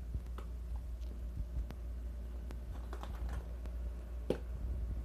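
Scattered light clicks and taps of small plastic parts being handled as a toy surprise egg is opened, with one louder click about four seconds in, over a steady low hum.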